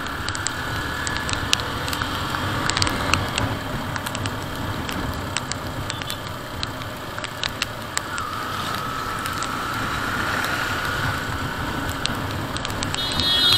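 Motorcycle riding on a wet road: steady engine, wind and tyre noise, with scattered sharp ticks of raindrops. A faint whine rises slowly in pitch in the second half.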